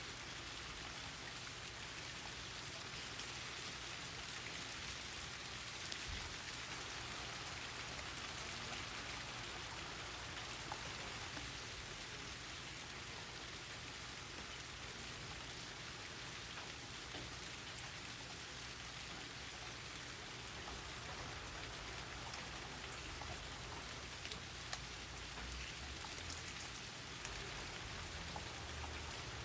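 Steady rain falling, with scattered single drops ticking louder on nearby surfaces.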